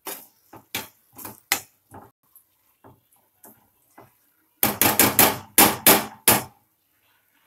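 Steel spoon scraping and knocking against a non-stick kadai while stirring thick mango pulihora paste: quick light knocks at first, then a run of six or seven loud knocks about five seconds in.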